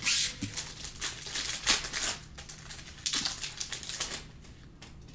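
Trading-card pack wrapper crinkling and tearing as it is ripped open by hand. It comes in crackling clusters with sharp clicks and stops about four seconds in.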